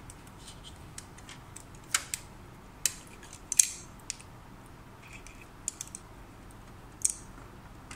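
Small plastic ink dampers being handled and bound with a rubber band: a few scattered sharp clicks and taps of plastic against plastic, with light rustling in between.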